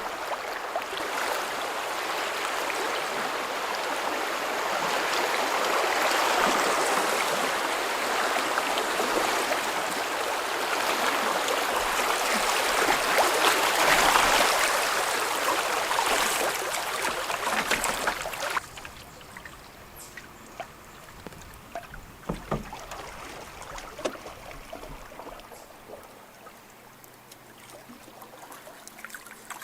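Rushing water of a river rapid, a loud steady rush that drops off suddenly about two-thirds of the way through, leaving quieter flowing water with a few small knocks.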